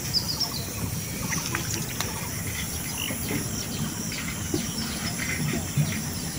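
Outdoor ambience with scattered short bird chirps over a steady low rustle.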